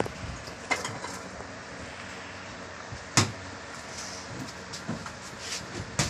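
Plastic casing of a top-loading washing machine being handled: a few knocks and clacks as the top panel and lid are gripped and shifted, the loudest about three seconds in, over a steady low background rumble.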